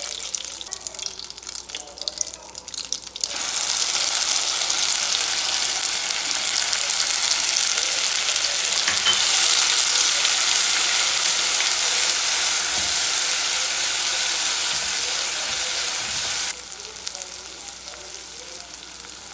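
Butter and oil frying with whole spices in a pot; about three seconds in, ground masala paste hits the hot fat and sets off a loud sizzle while it is stirred with a silicone spatula. The sizzle drops abruptly to a quieter frying hiss a few seconds before the end.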